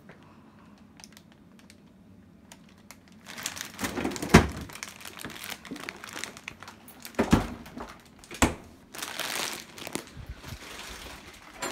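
Resealable plastic bag of shredded cheese crinkling as it is handled and shaken, with a few sharp knocks along the way. Quiet for the first three seconds or so.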